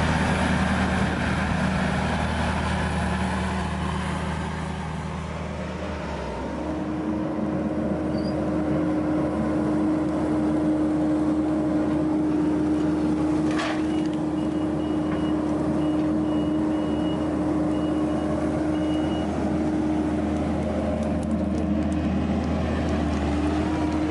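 Diesel engine of a log skidder running steadily, settling about six seconds in to an even, lower hum. A single sharp crack sounds about halfway through.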